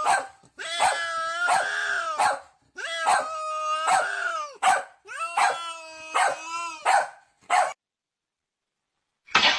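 A young animal crying in a series of drawn-out, wavering whining calls, several in a row. The calls stop about eight seconds in, and one short cry comes just before the end.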